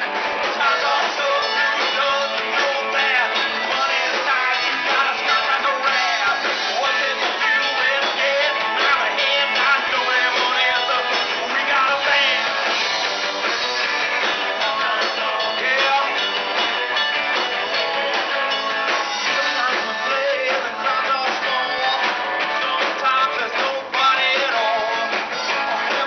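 Live rock band playing: electric guitars, a drum kit and a singer's vocals through a PA. It is recorded on a small camera's microphone, so the sound is thin with little bass.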